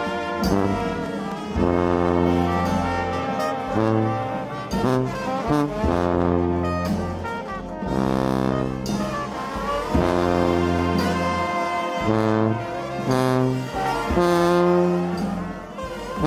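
New Orleans brass band playing a jazz tune: trumpets and trombones play riffs over a sousaphone bass line, with bass drum and cymbal strikes.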